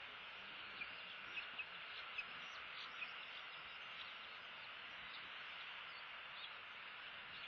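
Outdoor ambience picked up by an eagle-nest camera's microphone: a steady faint hiss, with a handful of brief faint chirps in the first three seconds.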